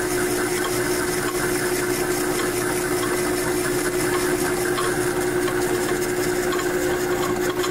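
Metal lathe running with a steady hum and whine as a boring bar cuts inside the tapered mounting socket of a Jacobs 16N drill chuck body, near the bottom of the bore.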